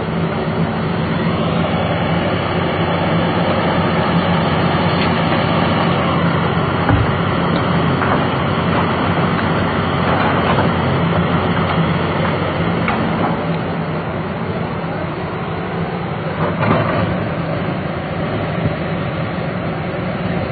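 Liebherr crawler excavator working: its diesel engine running under load, with a hydraulic whine that rises, holds and falls away twice as the boom swings and lifts. A few knocks as the bucket dumps earth into the dump truck's bed and digs back into the pile.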